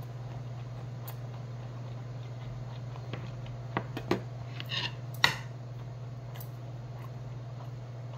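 A few light clicks of metal chopsticks and spoon against stainless-steel bowls a little past the middle, with a short mouth sound of eating among them, over a steady low hum.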